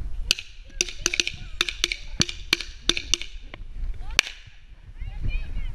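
A string of firecrackers going off inside a plastic bottle: about ten sharp bangs in quick, uneven succession over roughly four seconds, sounding like a gun.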